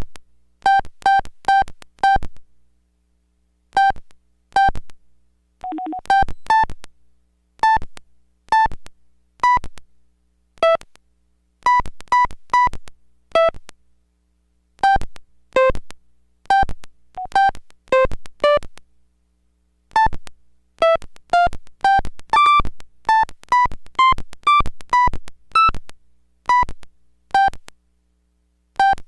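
Samsung SPH-A840 cell phone playing a ringtone melody through its small speaker: quick, short synth notes that jump about in pitch, in phrases separated by brief pauses. A short, lower two-note tone sounds about six seconds in, before the melody picks up again.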